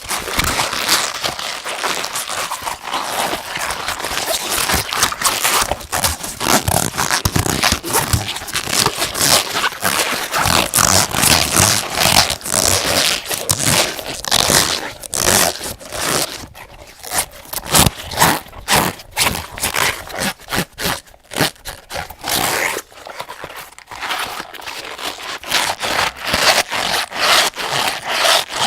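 Rubber hot water bottle being squeezed and rubbed to make gross sounds: a dense, irregular stream of short rubbery noises, with a few brief lulls in the second half.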